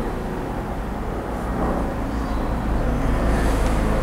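A steady low mechanical hum, like a distant engine or motor running, swelling a little about three seconds in. Faint light clicks of small metal carburettor parts being handled sit over it.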